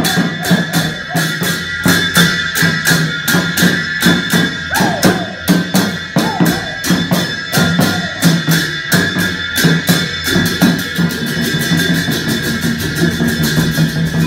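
Folk dance accompaniment: a double-headed barrel drum beaten in a fast, even rhythm under a steady high ringing tone. The beat grows denser about ten seconds in.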